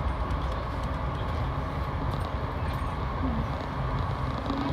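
Steady rumble and rail noise heard inside a VIA Rail passenger coach running at speed, with faint ticks and rattles over the even roar.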